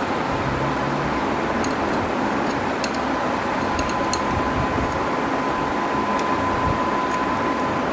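Steady machine noise, like a running fan, with a thin high whine that grows stronger about halfway through and a few light ticks.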